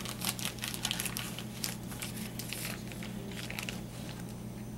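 Steady low hum of commercial kitchen equipment, with scattered light taps and clicks of things being handled, most of them in the first few seconds.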